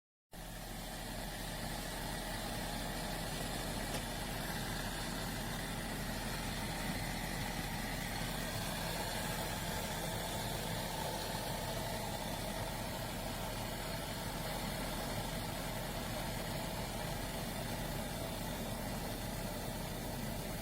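Small portable electric kettle heating water: a steady rumbling hiss over a low hum, starting abruptly just after the beginning.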